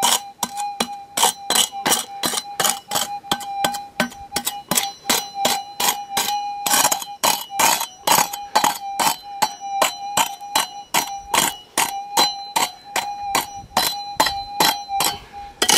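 Steel prospecting pick striking and chipping hard bedrock in quick blows, about three a second, each with a ringing metallic clink. A steady high tone runs underneath.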